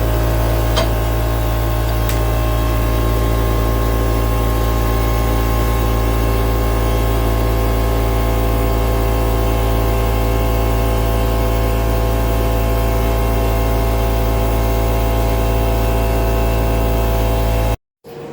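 A machine running steadily, a constant low hum with several steady tones above it, which stops abruptly near the end.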